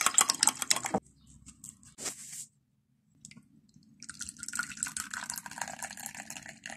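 Quick clinks of a brush in a glass jar of water for about a second, then a few faint ticks. From about four seconds in, a drink is poured from a thermos flask into a mug with an uneven splashing pour.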